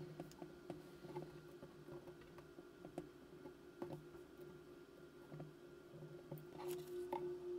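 Faint scattered clicks and ticks of a small screwdriver and tiny metal parts against the metal mechanism plate of a camera, over low steady sustained tones. The tones grow louder near the end, just after a brief rustle.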